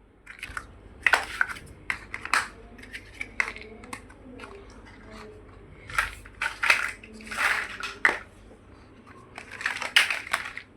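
Plastic building bricks being handled and pressed together: a run of irregular sharp clicks and short rattling, crunchy clatters, in several clusters.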